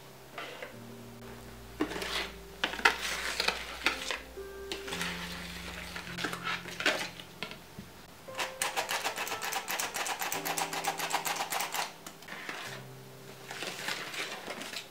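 Wire balloon whisk beating egg batter in a plastic bowl: a rapid, even run of strokes for about three seconds in the middle, with slower scraping stirs before and after, over soft background music.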